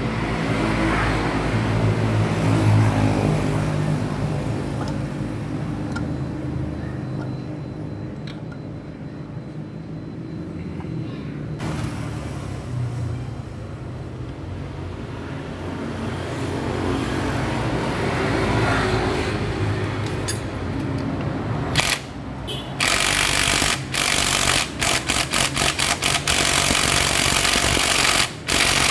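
An engine, likely a passing motorcycle, swells and fades twice. From about three-quarters of the way in, a cordless drill-driver spins the motorcycle's magneto flywheel nut on in a run of short bursts with brief gaps.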